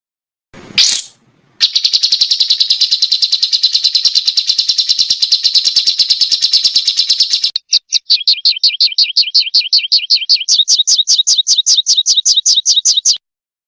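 Small songbird singing a rapid, machine-gun-like trill of even notes, then switching to a second fast trill of repeated sweeping notes that cuts off abruptly. This is a 'tembakan' song of the kind used as tutor recordings for competition songbirds.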